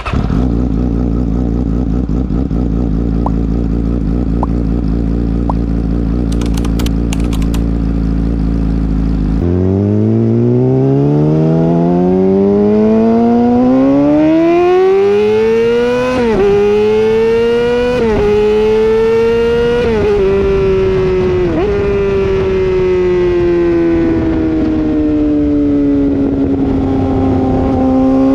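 Yamaha R6's 600 cc inline-four through a loud, muffler-deleted M4 Street Slayer exhaust, idling steadily for about nine seconds. It then pulls away with the engine note climbing smoothly, dips briefly at quick gear changes around sixteen to twenty seconds in, and slowly falls in pitch near the end.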